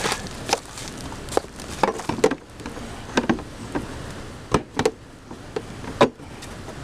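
Irregular knocks and clunks, a dozen or so of varied loudness, as a tow dolly fender is handled and worked onto its mounting brackets.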